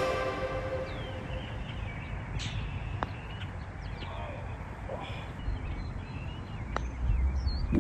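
Golf putters striking balls on a green, one sharp click about three seconds in and another near the end, over outdoor ambience with birds chirping.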